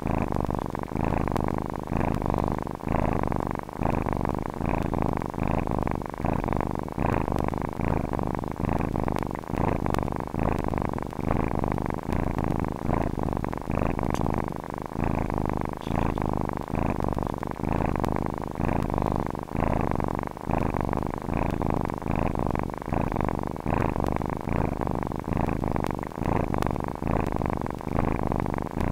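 Domestic cat purring steadily, the purr swelling and easing in an even rhythm with each breath in and out.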